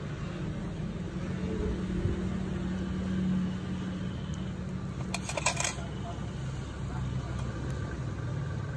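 Steel nail tools clinking together for about half a second, a little past halfway, over a steady low hum.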